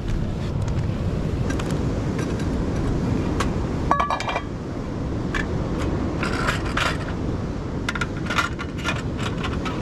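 Metal clinks and scrapes of camping cookware being set out and handled, with one ringing clink about four seconds in and lighter clicks later, over a steady low background rumble.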